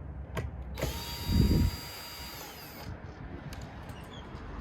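Cordless drill-driver with a Torx bit backing out a screw from a car door trim panel: the motor whines steadily for about two seconds with a low thump partway through, then winds down as the trigger is released.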